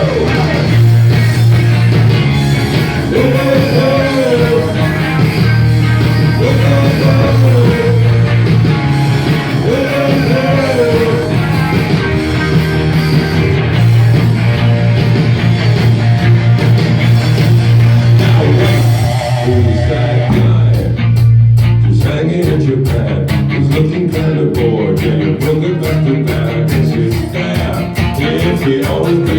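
A rock band playing in rehearsal: electric guitar and bass with drums and a singing voice. About two-thirds in, the sound thins out and a sharper, evenly repeating beat takes over.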